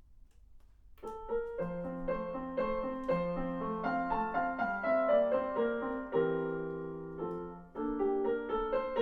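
A Clavinova digital piano plays a preset song, picked up through its speakers by room microphones. The notes start about a second in, and a chord is held before the melody picks up again near the end.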